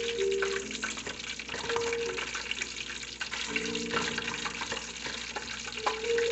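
Breaded calamari deep-frying in hot oil: a steady sizzle full of fine crackles and small pops.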